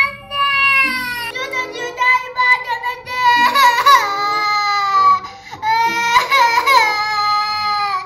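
A young girl wailing in several long, high-pitched cries with short breaks between them: put-on crying, faking an injury with ketchup smeared on her arm.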